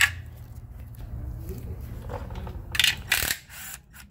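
Metal clicks and short scraping rattles from hand work on the transmission heat-shield nuts and tools: a sharp click at the start, then a couple of louder scraping rattles about three seconds in, over a low steady hum.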